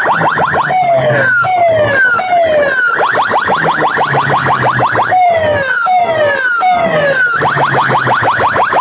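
Loud electronic siren-style effect played through a rig of horn loudspeakers: runs of fast rising chirps, about ten a second, alternate with slower falling swoops, two or three at a time, the pattern repeating over a low tone.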